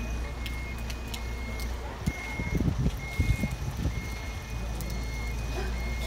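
Mobile crane working a lift: its engine runs with a steady low hum while its warning beeper sounds short high beeps about once a second. Louder, uneven low rumbling comes through around the middle.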